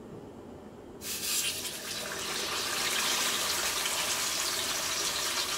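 A whole marinated fish dropped into hot oil in a cast-iron wok: a sudden loud sizzle about a second in that then keeps on as a steady frying hiss.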